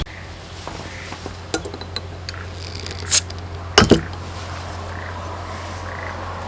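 Dishes and kitchenware being handled: a few light clinks, a short high scrape or hiss about three seconds in, then two quick knocks of something set down hard, over a steady low hum.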